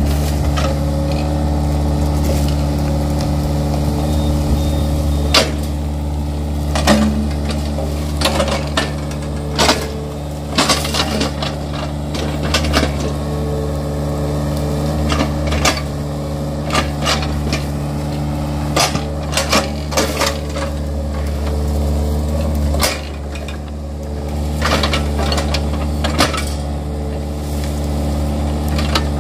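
Yanmar mini excavator's diesel engine running steadily under load, with frequent sharp cracks and knocks as its bucket breaks through felled oil palm trunks and fronds and digs into soil. The engine note dips briefly about three quarters of the way in.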